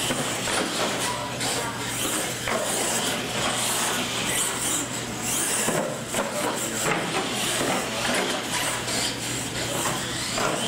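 Radio-controlled monster trucks running flat out across a concrete floor, with repeated knocks as they hit and land off plywood ramps.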